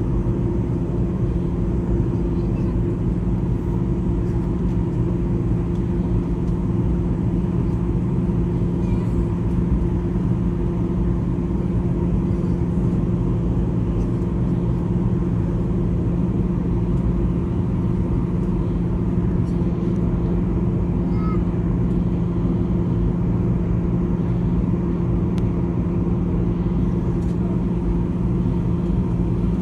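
Steady airliner cabin noise: jet engines and rushing air make an even, unbroken drone with a low steady hum, heard from inside the passenger cabin on the approach to landing.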